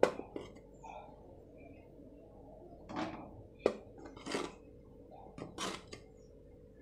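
A plastic measuring cup knocking and scraping against a metal kadai as rice flour is tipped into it. There is a sharp knock right at the start, then a few softer knocks and brushy swishes about three to six seconds in.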